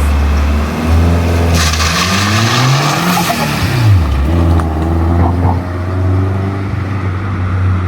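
Nissan SR20DET turbocharged 2.0-litre four-cylinder pulling hard. The revs rise over about two seconds with a loud rushing hiss, then drop quickly about four seconds in as the throttle is lifted. After that the engine runs steadily.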